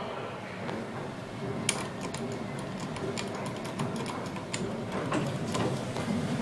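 Irregular string of sharp clicks and taps as the elevator car's push buttons are pressed, starting about two seconds in, over a low steady hum.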